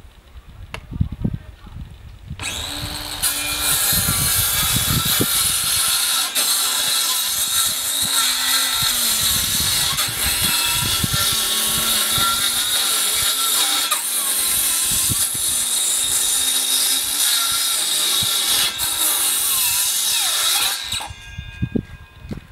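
Parkside 20V cordless circular saw starting up about two seconds in and cutting across wooden boards for about eighteen seconds, its pitch wavering as the load on the blade changes, then stopping and winding down about a second before the end. A few knocks come before it starts.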